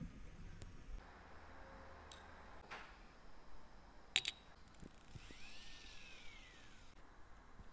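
Faint, sharp metallic clicks and taps of tweezers and small steel watch parts on a mechanical watch movement, a handful spread through, the loudest about four seconds in. Near the middle a high hiss comes in for about two seconds with a thin whistle that rises and falls.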